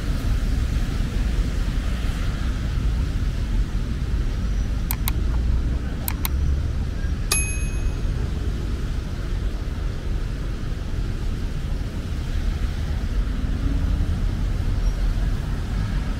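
Steady low rumble of ambient noise with a light hiss. It is broken by a few sharp clicks about five and six seconds in, and by one short, bright metallic ding about seven seconds in.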